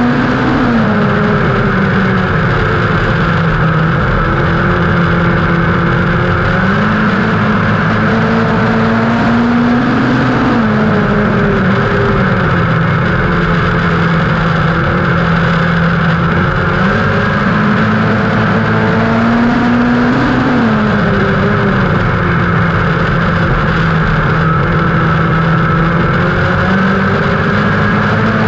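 Dirt-track midget race car's engine at racing speed, heard from the cockpit. It rises in pitch down each straight and drops as the driver lifts for the corners, about once every ten seconds, three times in all.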